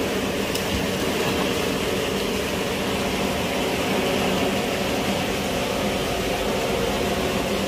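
Steady machine hum: a low drone holding a few fixed tones over a constant noise, unchanging throughout.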